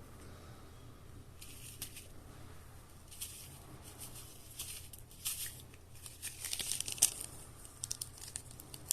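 A small packet of salt being crinkled and torn open, with the plastic rustling in several short spells and a few sharp crackles near the end.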